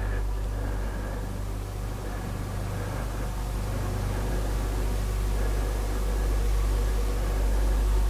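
Steady low hum under a constant even hiss, with faint steady high tones; nothing starts or stops.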